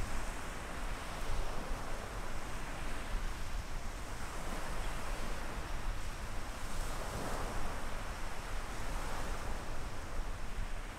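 Small waves washing up onto a sandy beach: a steady hiss of surf that swells now and then as each wash comes in.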